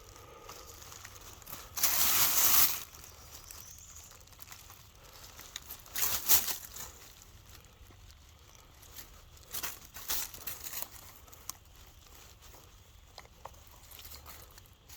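Rustling and crunching of leaves and dirt in a few short bursts, the longest about two seconds in, with quieter scraping between.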